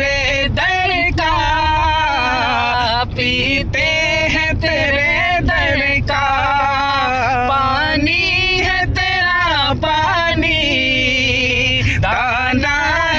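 Two men singing a naat without accompaniment, in long held notes that waver and slide in ornamented runs. A steady low rumble of the car lies underneath.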